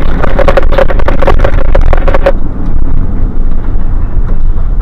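Fire engine driving over a rough, potholed road, heard from the cab: a steady engine and road rumble with many quick knocks and rattles. A rapidly pulsing tone runs through the first half and cuts off suddenly a little under halfway through.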